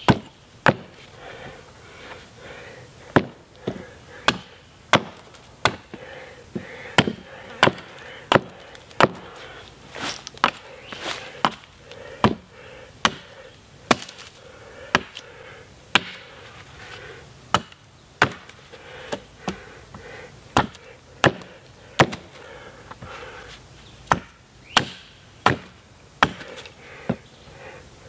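Hatchet chopping into the end of a green sapling pole, cutting it to a point for driving into the ground as a stake. Sharp wood strikes, roughly one a second, some in quicker runs with short pauses between.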